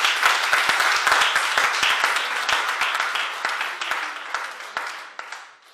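Audience applauding: many hands clapping together at once, tapering off and dying away near the end.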